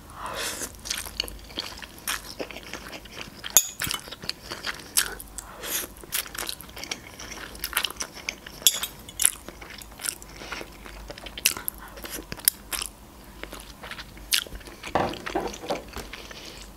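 Close-miked eating of instant noodles: chewing and slurping forkfuls, with many irregular wet mouth clicks. Near the end, a metal fork scrapes in the paper noodle cup.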